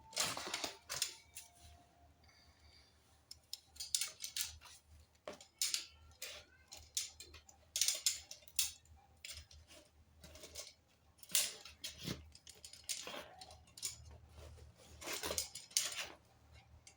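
Handling noise: a string of irregular clicks, taps and rustles, with several louder clatters, as of hands working with equipment and its packaging.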